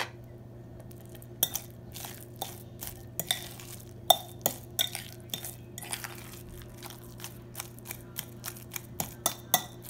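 A metal fork clinking and scraping against a glass bowl as it stirs cream into mashed avocado. The clinks come quick and irregular, starting about a second and a half in.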